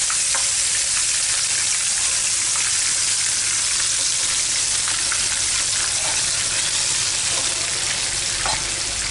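Marinated chicken leg pieces sizzling as they shallow-fry in hot refined oil in a frying pan: a steady frying hiss.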